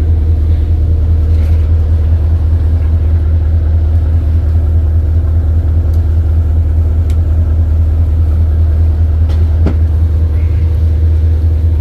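Boat engine running steadily, a constant low drone heard from on board, with a faint knock near the end.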